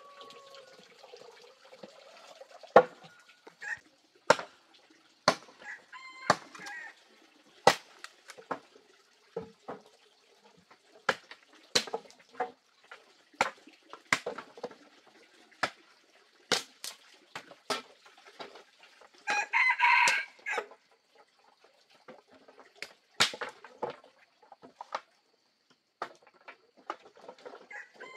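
Dry firewood sticks and branches knocking and clattering as they are handled and gathered into a bundle: a string of irregular sharp knocks. A rooster crows once, about twenty seconds in.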